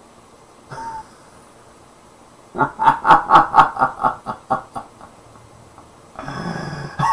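A man laughing in the puppet's voice: a run of rhythmic 'ha' pulses, about four a second, fading out over about two seconds. Near the end comes a harsh, breathy noise.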